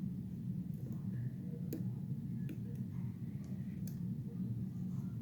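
A few faint, irregular metallic ticks of a lock pick and tension wrench working the pins of a Bilock-style challenge lock, over a steady low hum.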